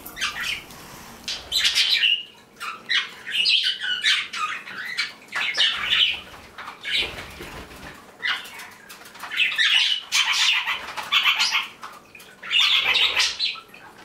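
A room full of small pet parrots, budgies and parakeets, chirping and chattering in repeated high-pitched bursts with short lulls between them.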